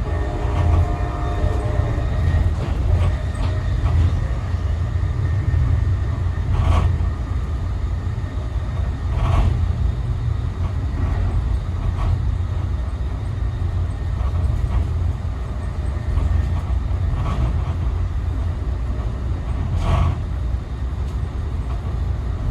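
Amtrak passenger train running along the track: a steady low rumble with a faint clack every few seconds.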